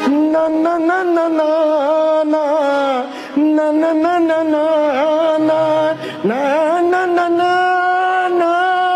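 A man's solo singing voice holding long, wavering notes without clear words, pausing briefly for breath about three and six seconds in.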